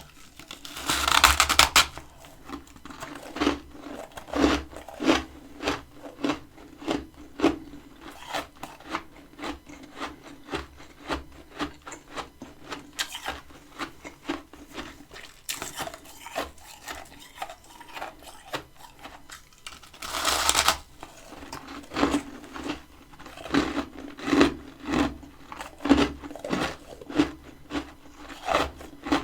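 Freezer frost being bitten and chewed close to the microphone: a steady run of crisp crunching chews, about two a second, with two longer, louder crunches, one about a second in and one about two-thirds of the way through.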